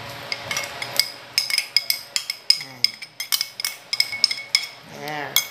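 A spoon stirring creamy sauce in a cooking pot, clinking against the pot in a quick, irregular run of strikes, about five a second.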